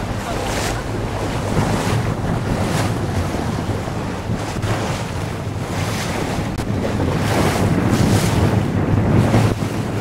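Wind buffeting the microphone aboard a moving excursion motor boat, in gusts, over the rush of sea water and a steady low hum from the boat's engine.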